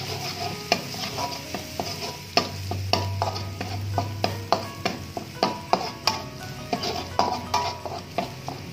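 Metal spatula scraping and knocking against a wok while minced garlic sizzles in a little hot oil, with irregular clanks about once or twice a second.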